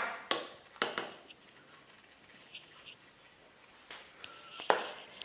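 A flour shaker being shaken over the counter gives sharp little clicks, two in the first second. Then there is quiet room tone, with two more clicks about four seconds in.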